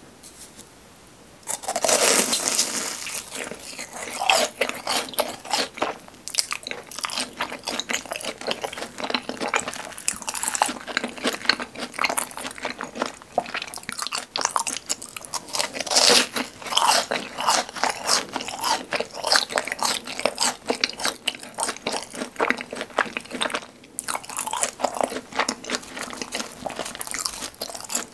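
A person biting into a crispy fried bhc Bburing cheese ball: a loud crunch about a second and a half in, then steady chewing with dense, crackly crunching.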